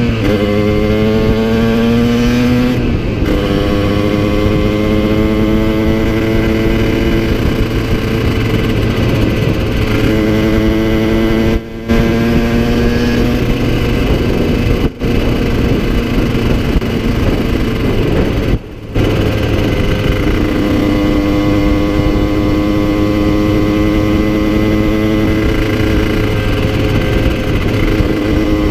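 Yamaha TZR50 single-cylinder two-stroke engine, bored to 70cc with a Polini carb and Technigas expansion-chamber exhaust, pulling along the road. Its note climbs slowly through several stretches, with a sharp drop at the start and a few brief breaks in the sound. The top end is worn and the engine is well down on power, as the owner says.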